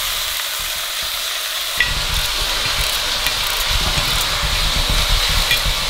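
Pigeon halves and onions sizzling as they brown in oil in a cast-iron casserole: a steady frying hiss. About two seconds in, a low rumble and a few faint light clicks join it.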